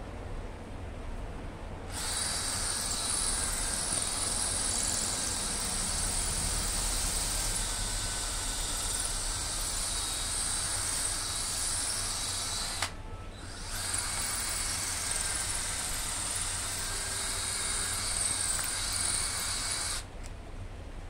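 Cordless drill running under load in two long runs, about eleven seconds and then about six, with a brief stop between them.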